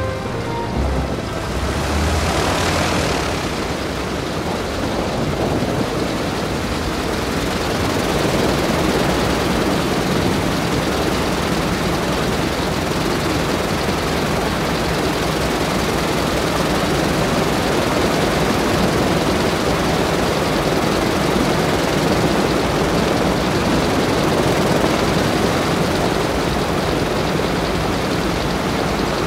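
Junkers Ju 52's three radial engines running steadily with propellers turning, growing slightly louder about eight seconds in. A brief hiss comes about two seconds in.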